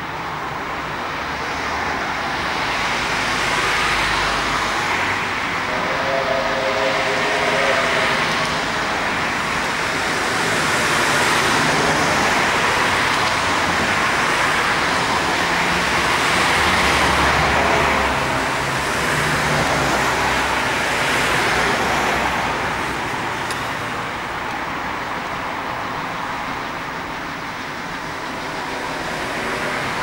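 Steady road traffic noise, rising and falling as vehicles pass, with the rumble of an approaching train.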